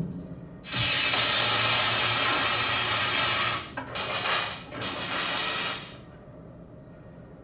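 Hissing rush of the 40 Acres and a Mule Filmworks logo sound effect, played over cinema speakers: one long hiss of about three seconds starting just under a second in, then two shorter ones, stopping about six seconds in.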